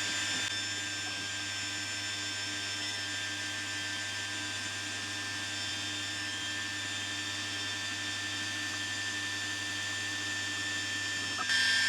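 Alpha Mk2 laser engraver running an engraving job: a steady mechanical hum with several high, unwavering whines, growing louder just before the end.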